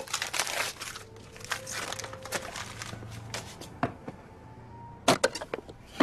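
Wrapping paper being torn and crumpled as a gift box is unwrapped, rustling busily at first and then thinning out. A few sharp clicks follow about five seconds in and again at the end.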